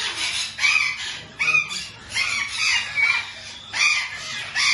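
Caged birds squawking, a string of loud, harsh calls about every half second to a second.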